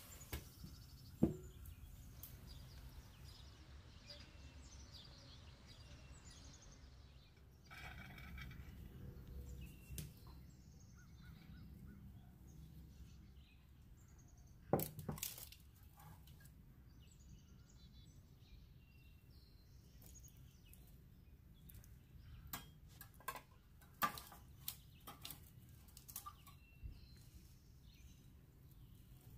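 Quiet kitchen background with a few sharp knocks and clicks of handling, and faint high chirping in the background.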